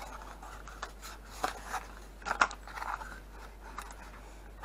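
Thin cardboard packaging box being opened and handled by hand, its flap and sides scraping and crinkling, with a few short sharp crackles about a second and a half and two and a half seconds in.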